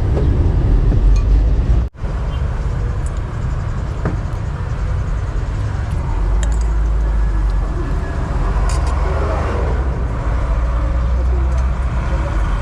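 Steady road traffic rumble with people's voices in the background and a few light clicks; the sound drops out briefly about two seconds in.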